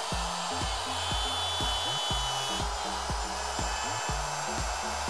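Corded router running steadily as it cuts dovetails in walnut boards held in a dovetail jig, with background music carrying a steady beat underneath.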